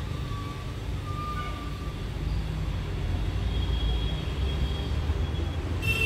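A few faint, thin whistled chirps from pet budgerigars over a steady low rumble that grows louder about two seconds in.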